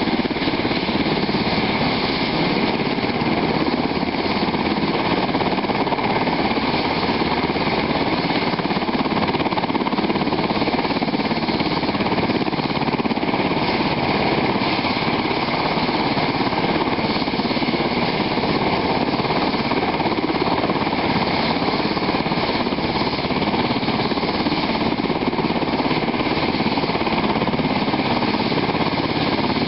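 UH-60 Black Hawk helicopter running on the ground with its rotors turning: its twin turboshaft engines and a rapid, steady rotor chop, holding the same level throughout, not yet lifting off.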